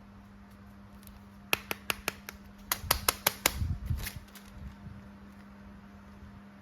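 A quick run of about a dozen sharp clicks and taps from a plastic toy being handled, starting about a second and a half in and lasting about three seconds, over a steady low electrical hum.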